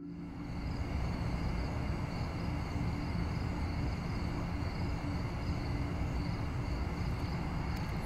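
Outdoor night ambience: a steady high chorus of insects such as crickets over a low, even rumbling noise, starting abruptly at the beginning.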